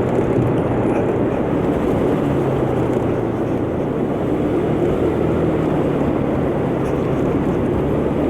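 125cc motor scooter's engine running steadily while under way, under a constant rush of wind and road noise.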